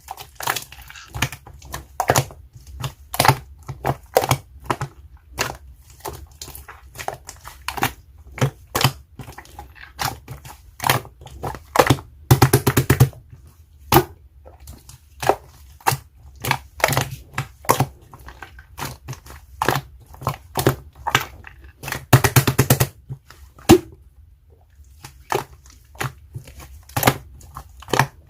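Slime being squeezed and pressed by hand, making a steady stream of sharp, wet pops and clicks. About twelve seconds in and again about ten seconds later it gives a short run of rapid crackling pops.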